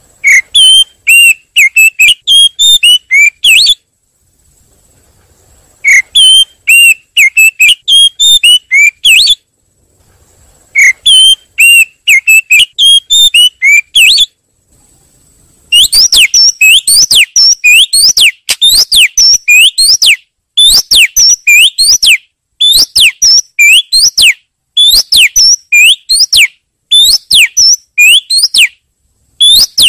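Oriental magpie-robin (kacer) calls played as a bird-trapping lure: three loud phrases of squeaky whistled chatter, each about three and a half seconds long with short gaps, then from about halfway a steady run of quick sweeping whistle notes, several a second, in groups of about two seconds.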